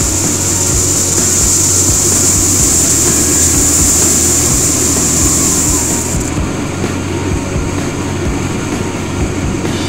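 Motorcycle engine running while riding, with wind rushing over the microphone. The high hiss thins out about six seconds in.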